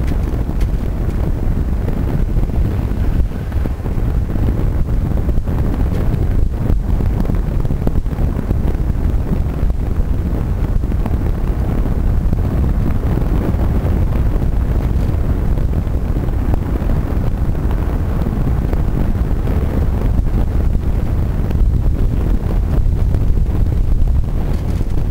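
Steady wind buffeting the microphone of an engineless billy kart coasting downhill, mixed with the rumble of its small tyres on tarmac.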